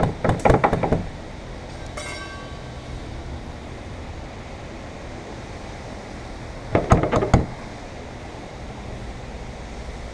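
Two short bursts of clattering knocks, one at the start and one about seven seconds in, with a single ringing clink about two seconds in, over a steady low background hum: hard objects being handled and set down during work on the car.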